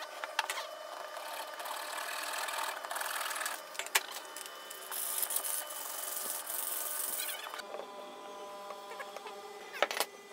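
Sandpaper rubbed by hand over the face of a wooden mitered corner joint: a rasping hiss in two long runs of strokes, with a sharp click between them. Near the end there are a couple of wooden knocks as the piece is handled.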